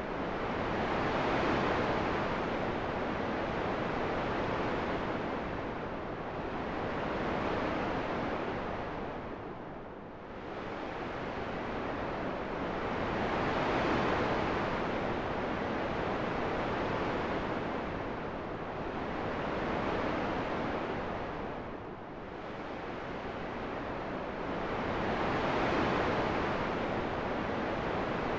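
Wind: a steady rushing noise that swells and eases in slow gusts every few seconds, dipping lower twice.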